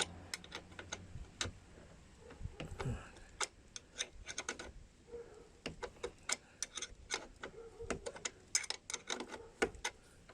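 Irregular metal clicks and ticks as a bicycle crank puller is wound in with a wrench to pull the crank arm off the bottom bracket spindle.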